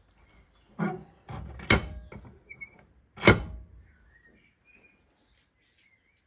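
A few sharp knocks and a short clatter, the loudest about three seconds in, with birds chirping faintly in the background.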